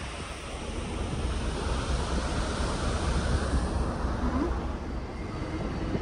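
Steady wind rumbling and buffeting on the microphone on a moving ship's open deck, over the rush of the sea.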